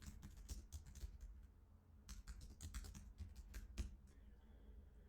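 Faint typing on a computer keyboard: irregular runs of key clicks, with a short pause about a second and a half in and only a few clicks in the last second.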